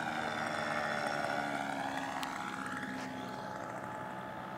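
Radio-controlled floatplane's motor and propeller passing low and close, loudest about a second in, its pitch falling as it goes by, then running quieter as it heads down toward the water.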